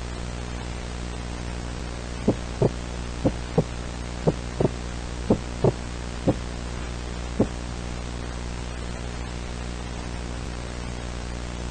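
A steady low electrical hum with a heartbeat sound effect over it. Paired thumps come about once a second from about two seconds in, thin out to single beats, and stop about seven seconds in.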